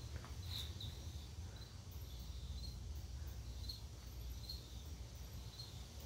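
1985 Hunter Original ceiling fan's oil-bath motor running with a steady low hum. Short high chirps repeat roughly every second over it.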